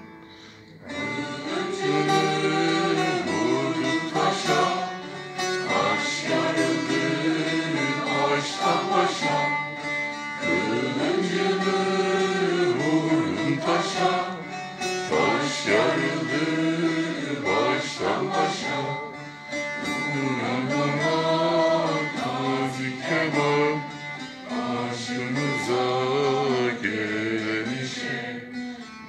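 Mixed choir singing a Turkish folk song, accompanied by a plucked bağlama; the voices come in about a second in and carry on in long sung phrases.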